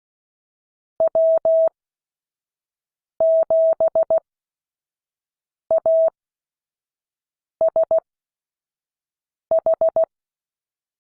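Morse code practice tone: one steady pitch keyed on and off in short dits and longer dahs. It is sent as five separate characters with gaps of about two seconds between them.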